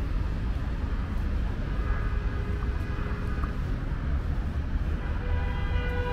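City road traffic with a steady low rumble. A vehicle horn starts sounding about five seconds in and is held.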